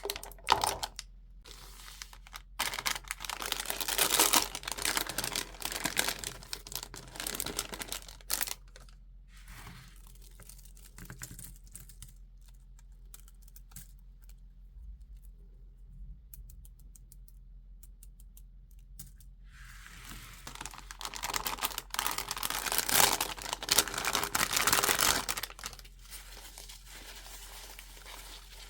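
Toy packaging being crinkled and torn open by hand, in two long stretches: one starting a few seconds in and one about two-thirds of the way through, with small clicks and taps in the quieter gap between.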